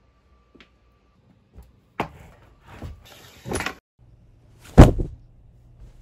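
A series of knocks and thumps, then one loud bang about five seconds in.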